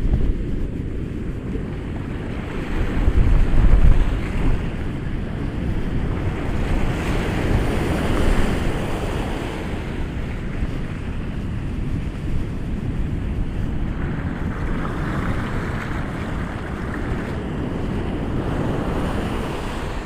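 Ocean surf breaking and washing in continuously, with wind rumbling on the microphone. A louder low gust comes about three seconds in, and the wash of surf swells around eight seconds and again from about fourteen seconds.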